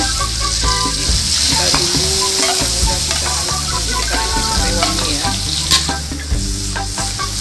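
Sizzling of frying in hot melted margarine in a pan, with stirring.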